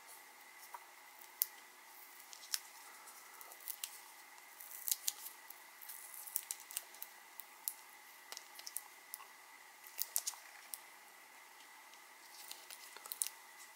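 Small, irregular clicks and crackles of Kapton tape being picked at with a fingernail and peeled off the wire leads of a lipo battery pouch.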